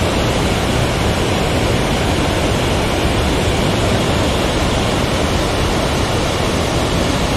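Flash flood of muddy water and stones pouring down a steep mountain gully: a steady, loud rushing noise that does not let up.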